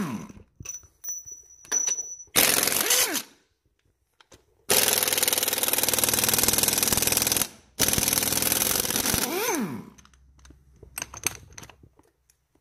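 Impact wrench running on the bolt of a VW New Beetle's lower torque strut (engine mount) to take it off: a series of bursts of rapid hammering, the longest about three seconds. Each burst winds up and down in pitch at its start and end, and a few light metallic clicks follow near the end.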